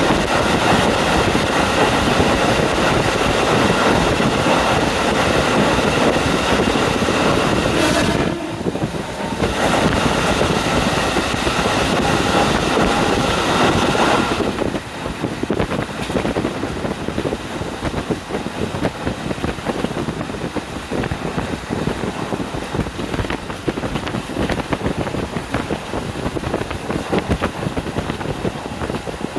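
KiHa 40 diesel railcar running along the line, heard through an open window with wind buffeting the microphone. For the first half a steady high ringing tone rides over the rumble, breaking off briefly about 8 s in and stopping about 14 s in. After that only the rolling rumble and wind remain.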